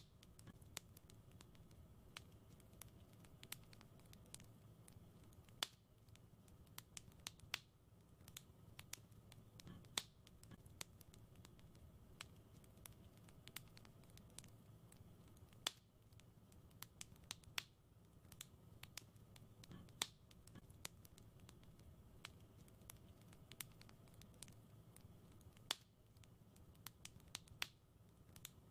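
Wood fire crackling in a fireplace: soft, irregular pops and snaps, a few sharper ones standing out, over a low steady rumble of the burning fire.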